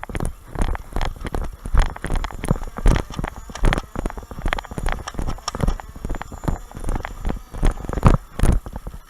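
Footsteps: a quick, irregular run of heavy thumps, about two or three a second.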